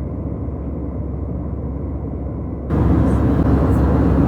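Airliner cabin noise: a steady low rumble of engines and airflow, muffled at first and becoming louder and fuller a little over two and a half seconds in.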